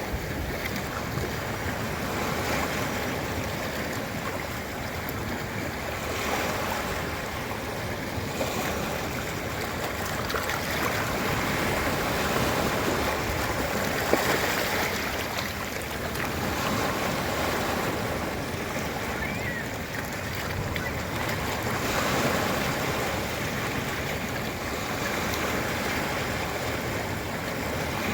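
Ocean surf breaking and washing onto a beach, a continuous rush of water that swells and eases every few seconds.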